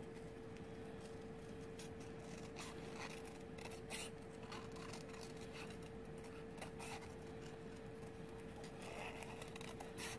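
Scissors snipping around a cut-out paper image in faint, scattered short snips, over a steady faint hum.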